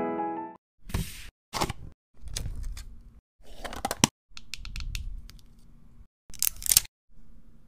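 A string of short plastic clicks, taps and rustling from a small pixel-display gadget being handled and unpacked by hand, in separate bursts with brief silences between.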